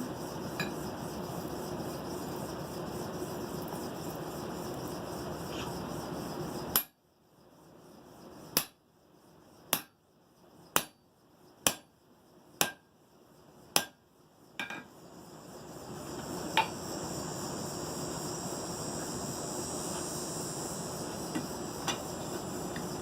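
Hand hammer striking a steel drift to open the eye of a hot forged hammer head, about one blow a second, eight blows in all, each with a short metallic ring. A steady rushing background noise comes before and after the blows.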